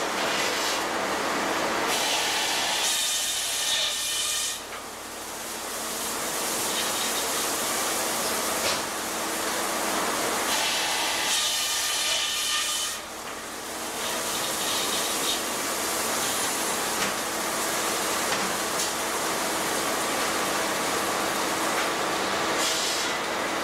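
Large sawmill circular headsaw cutting through a log: a steady hissing whine with high ringing tones, easing off briefly twice, about five and thirteen seconds in.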